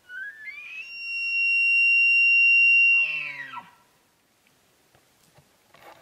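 Bull elk bugling: a high whistle that climbs in pitch, holds steady for about two seconds, then drops into a few deep grunts.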